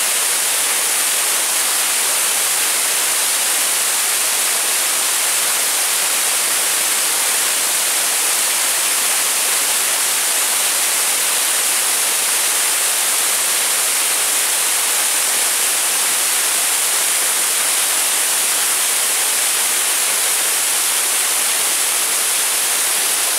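Steady, even hissing rush of a cascading waterfall tumbling over rocks, with no change in level.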